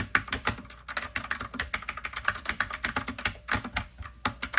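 Typing on a retro typewriter-style mechanical keyboard with clicky blue switches and round keycaps: rapid key clicks, several a second, with two brief pauses.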